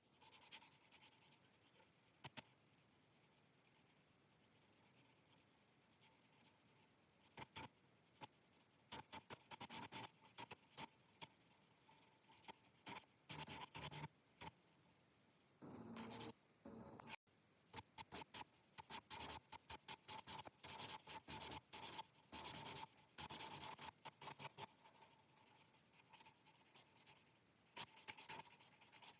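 Hand scrubbing and scraping on the rusted steel knife blade to take off the rust, in runs of quick strokes with short pauses between them.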